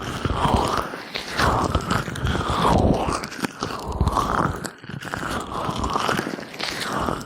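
Gloved hands massaging an ear with oil: slow rubbing strokes, roughly one every second or so, with fine crackling throughout.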